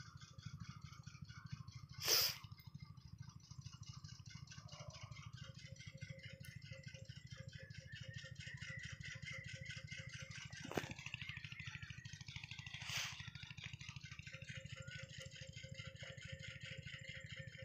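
Hammer blows driving an oil seal into its housing in the engine cover: one sharp strike about two seconds in and two lighter ones later, over a steady faint rattling in the background.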